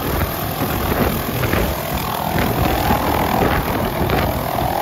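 MD 500E helicopter hovering low just after lift-off: the steady rhythmic chop of its five-blade main rotor over the faint whine of its Allison 250 turboshaft engine.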